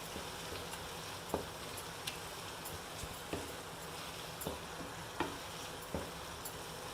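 Onion-tomato masala with spice powders frying in oil in a pan, a steady sizzle, while a spoon stirs it and knocks against the pan six times.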